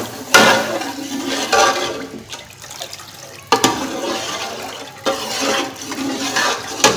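A metal ladle stirring and sloshing watery masala gravy in an aluminium pot, in repeated surges, with a few sharp knocks of the ladle against the pot: one at the start, one about three and a half seconds in, and one near the end.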